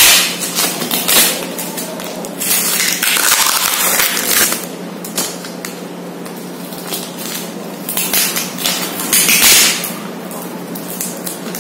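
Packing tape and wrapping on a book parcel being peeled and handled, crinkling and rustling in several irregular bursts, the loudest near the start, in the middle and about two-thirds of the way in. A faint steady low hum lies underneath.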